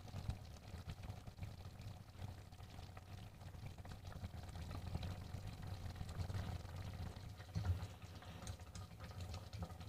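Thick strawberry jam simmering in a steel pot, bubbling and popping softly while a wooden spatula stirs and scrapes through it, over a low steady rumble, with a sharper knock about two thirds of the way through.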